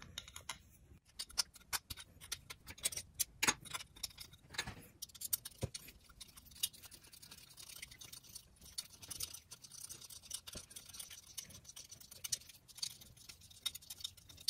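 Faint, irregular small clicks and taps of a small screwdriver turning a long machine screw through a 3D-printed plastic hinge, with the screw and the plastic parts ticking as they are handled. The clicks come thickest in the first few seconds and thin out after.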